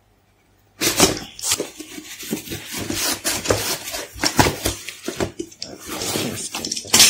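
Cardboard shipping box being torn open and handled: packing tape and cardboard flaps ripping, scraping and rustling in irregular crackles, starting about a second in, with a sharp loud crackle near the end.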